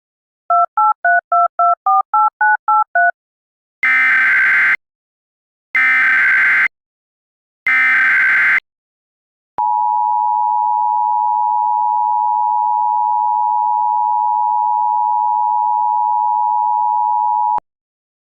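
Emergency Alert System tones: a quick run of about ten touch-tone (DTMF) beeps, then three short buzzy bursts of SAME header data. Then the steady two-tone EAS attention signal sounds for about eight seconds and cuts off abruptly, announcing an alert, here a severe thunderstorm warning.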